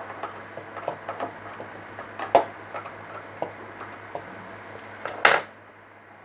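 Small scattered clicks and taps from handling a circuit board and tools, over a steady low mains hum, with a short breath noise about five seconds in.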